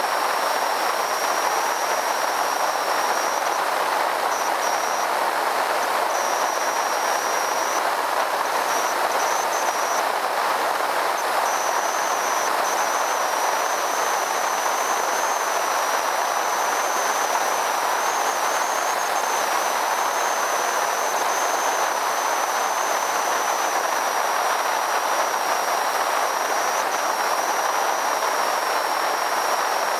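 Steady rush of airflow over a wingtip-mounted camera on a Zenith CH 650 light aircraft in flight, with a thin steady high whine.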